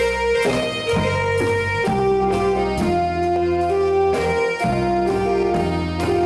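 Live band playing an instrumental tune: electric guitar and bass guitar over drums and cymbal, with held melody notes and a steady beat of about two drum strikes a second.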